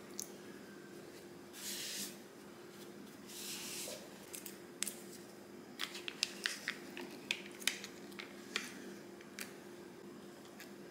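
Plastic wet dog food tray being handled and its peel-off film lid pulled back, giving many small crinkling clicks and crackles through the second half, after two short rustles earlier on. A faint steady hum runs underneath.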